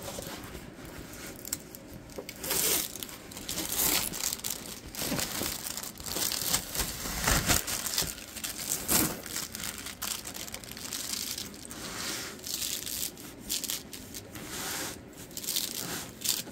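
Thin clear plastic cover film on a diamond painting canvas crinkling and rustling in irregular bursts as hands unroll it and smooth it flat.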